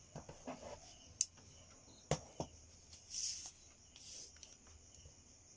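Insects chirping steadily in the background, with two sharp clicks a second apart and two short rustling noises a little later.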